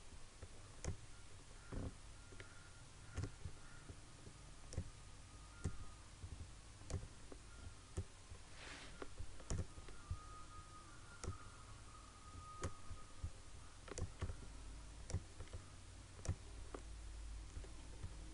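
Computer mouse buttons clicking: repeated short, sharp clicks at uneven intervals, roughly one a second, over a faint low hum.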